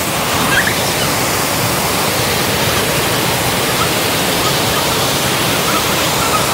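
Waterfall pouring, heard right in the falling water: a loud, steady rush.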